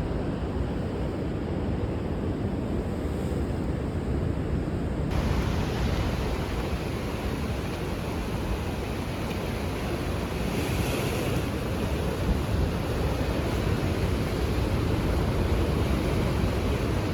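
Steady roar of ocean surf mixed with wind buffeting the microphone, turning brighter and hissier about five seconds in.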